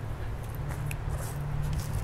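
Footsteps rustling on dry grass and leaves as a person walks away, a few short crunches over a steady low rumble.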